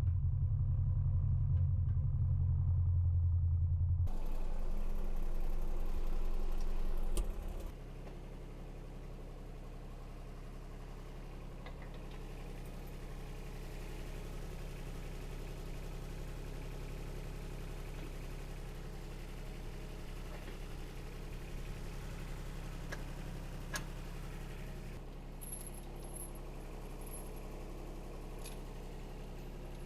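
John Deere 2210 compact tractor's three-cylinder diesel engine running. It runs louder for the first seven seconds, then drops to a steady lower idle, with a few light clicks.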